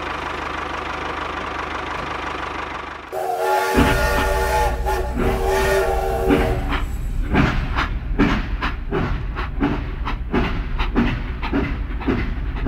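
A small motor hums steadily for about three seconds. Then a toy steam locomotive sounds a held steam-whistle chord for about three seconds, followed by rhythmic chuffing, about two beats a second, over a low hum.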